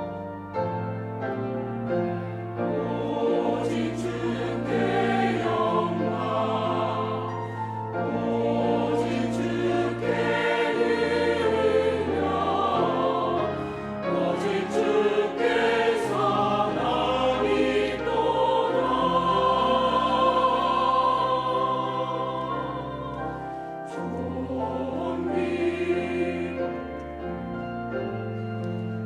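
Church choir singing a sacred anthem in parts, over long-held low accompaniment notes.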